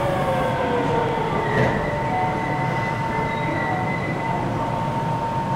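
66 series subway train slowing to a stop at a station, heard from inside the car: a low rumble of wheels on rail under a steady high whine. A higher squeal joins about one and a half seconds in and fades out about four seconds in.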